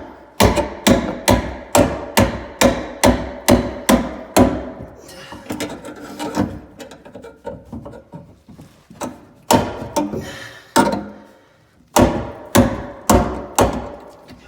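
Hammer striking to knock out a knockout hole in an electrical box. There is a quick run of sharp strikes, about two to three a second, then a few seconds of fainter scraping, then two shorter runs of strikes.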